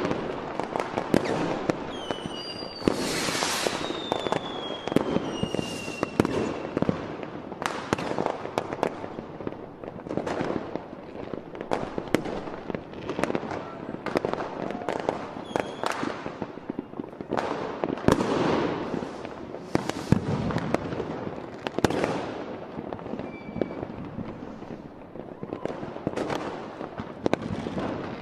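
New Year's Eve fireworks going off without pause: a dense, irregular barrage of firecracker and rocket bangs. About three seconds in, whistling rockets glide down in pitch over a few seconds.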